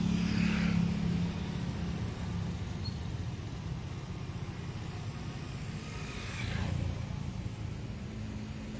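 Street traffic: a steady low engine rumble with vehicles passing by, one swelling past about half a second in and another around six and a half seconds in.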